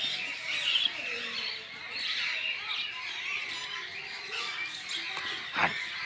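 Many small birds chirping and twittering at once in an aviary, with a single louder, short squawk-like call near the end.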